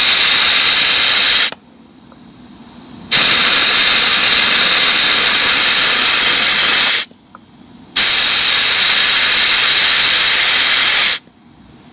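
Air rushing out of a tyre through a Smittybilt tire deflator with the valve core removed, airing the tyre down: a loud hiss that cuts off twice for a second or two, when the collar is pushed down to check the gauge, and starts again each time.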